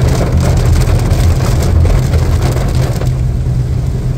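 Heavy rain drumming on a Honda Civic sedan, heard from inside the cabin over the steady low rumble of the engine and tyres on the wet road. The rain's hiss thins out for the last second or so.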